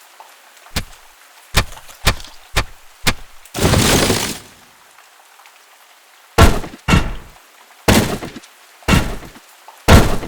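Designed impact and destruction sound effects: five quick sharp knocks, a crash of breaking debris lasting about a second, then after a pause five heavier thuds, each with a short tail.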